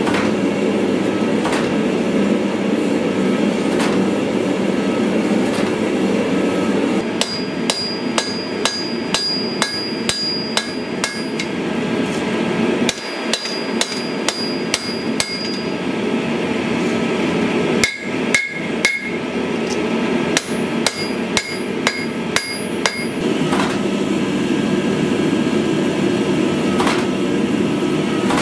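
Hand hammer striking a red-hot sword blade on the anvil in runs of ringing blows, about two or three a second, with short pauses between runs. A steady rush from the forge runs underneath and is louder before and after the hammering.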